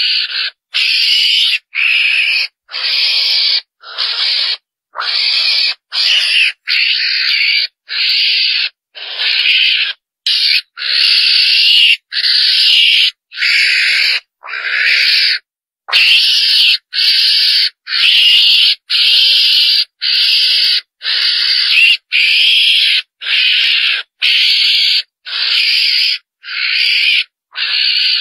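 A mongoose (chồn đèn) calling over and over, about one harsh, noisy call a second with short gaps between. It is a hunting lure call meant to draw the animals in.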